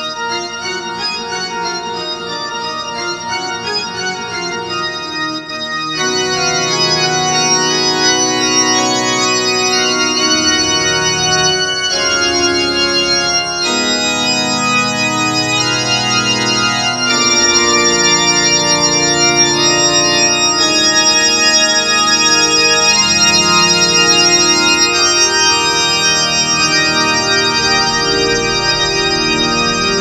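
Yamaha PSR-E463 portable keyboard playing a layered pipe organ and church organ voice: full, held organ chords that change every few seconds, growing louder about six seconds in and again a little past the middle.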